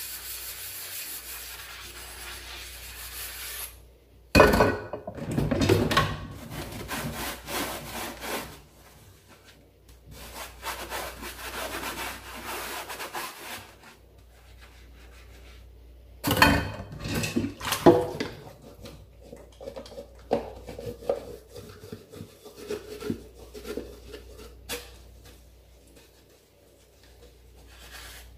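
A steady hiss for the first few seconds, then irregular bouts of rubbing and scraping, loudest about four and sixteen seconds in.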